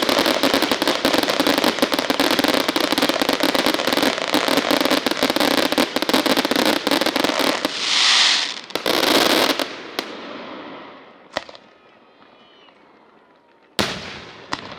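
Fireworks: a dense barrage of rapid crackling bangs, then two loud hissing bursts, after which the display thins out to a few single sharp bangs.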